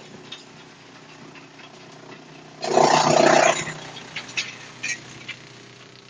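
Waste wood chipper machine running with a steady hum. About two and a half seconds in comes a loud, rough burst lasting about a second, followed by a few sharp knocks.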